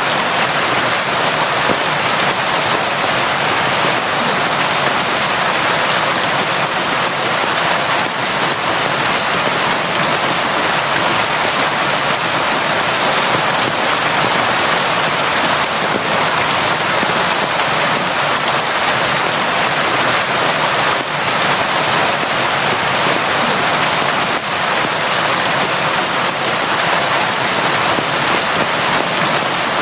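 Steady, heavy rain falling without a break, a dense even hiss of countless drops.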